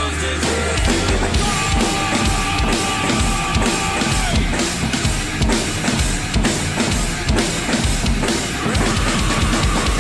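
Mapex acoustic drum kit played in a steady rock beat of bass drum, snare and cymbals, over recorded backing music with long held notes.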